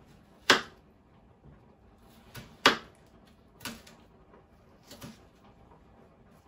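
A kitchen knife cutting green bell pepper and tomato on a plastic cutting board: about five separate sharp taps of the blade on the board at uneven intervals. The two loudest come about half a second in and just under three seconds in.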